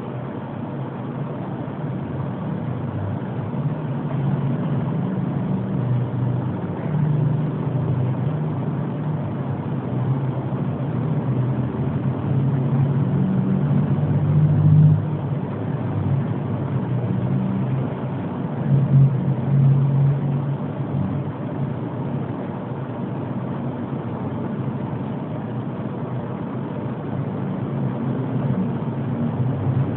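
A man snoring in his sleep: a low, continuous rumbling with a few louder swells.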